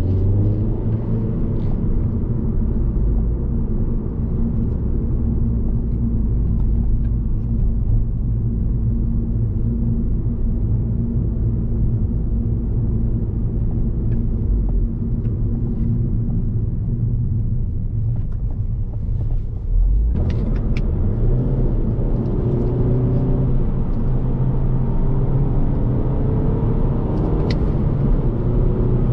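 Alfa Romeo Giulietta's 1.75 TBi turbocharged four-cylinder petrol engine, heard from inside the cabin while driving, over steady road and tyre noise. The engine note climbs as the car accelerates near the start. About twenty seconds in the sound changes abruptly, and the engine note climbs again a few seconds later.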